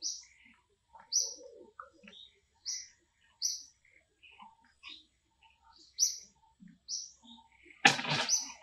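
Birds chirping: short, high chirps about once a second, with fainter scattered calls between them. A brief, loud burst of noise comes near the end.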